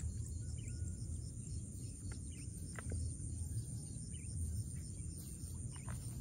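Outdoor swamp-side ambience: a steady high-pitched insect trill over a low rumble, with a few short faint bird chirps.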